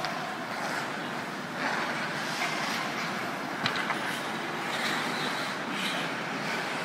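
Ice hockey skates scraping and hissing on rink ice, swelling now and then as skaters push off and turn, with a few faint clicks.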